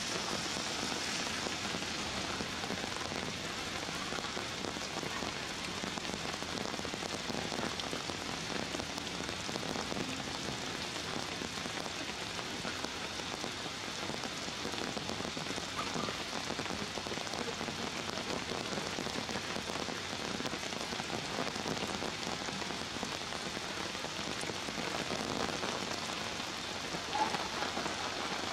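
Steady rain falling, an even, unbroken patter with no let-up.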